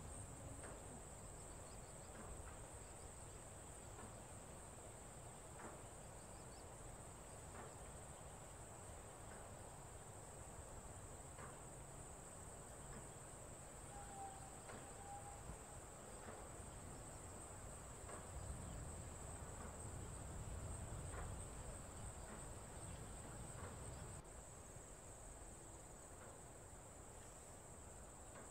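Steady, high-pitched chorus of insects, with faint clicks and knocks now and then.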